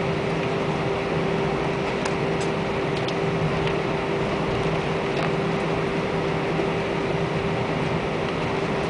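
Steady engine and air noise inside the cabin of an Airbus A320, with a constant hum.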